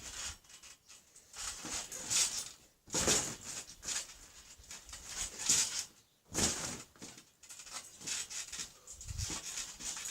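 Trampoline bouncing: a series of noisy bursts, about one a second and uneven in strength, from a person jumping on the mat and springs.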